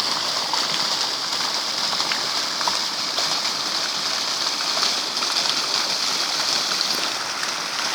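Water running steadily, with small drips and splashes scattered through it.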